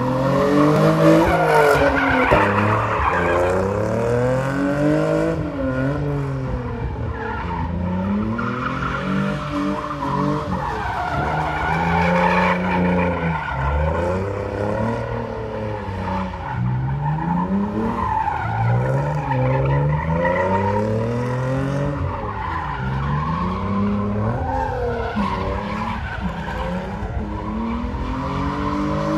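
Hyundai Genesis Coupe's 3.8 V6 drifting, its revs rising and falling every couple of seconds, with tyres squealing and skidding as they spin on the asphalt.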